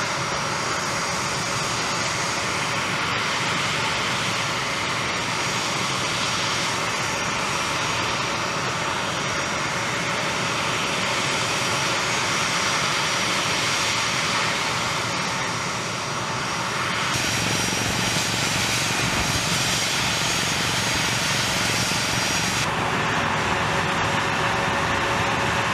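Jet engines running steadily on a flight line: a continuous noise with a constant high whine over it. The tone shifts twice in the latter part.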